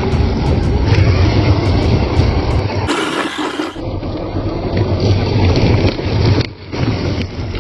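1/10-scale 4WD RC car driving over rough ground, its motor and tyres making a loud, rumbling noise. About three seconds in, the sound briefly turns hissier, and it drops out for a moment near the end.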